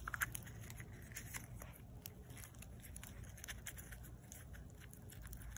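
Small dog eating a piece of bacon out of an opened plastic Easter egg: faint, scattered chewing clicks.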